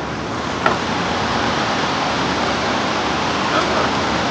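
Steady rushing of a flowing river, an even noise without a break, with a single sharp click about a second in.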